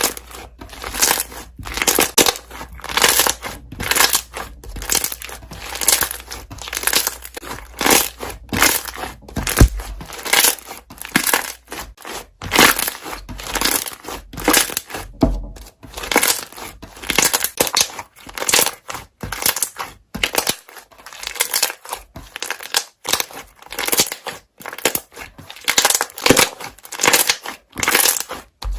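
Slime being squeezed and kneaded so that trapped air bubbles pop and crackle, in repeated short bursts of about one or two a second.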